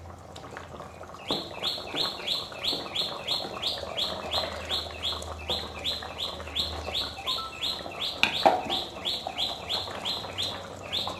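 A bird chirping: one short high note, each sweeping upward, repeated evenly about three times a second. A single soft knock comes about eight seconds in.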